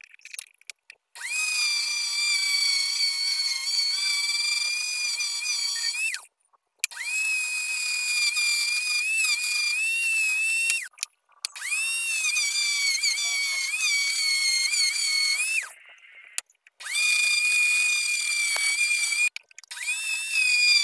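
Rotary tool on a flexible shaft with a sanding drum, sanding a wooden push block handle. It runs with a high-pitched whine in five stretches of a few seconds each, stopping briefly between them, and its pitch dips and wavers as the drum bites into the wood.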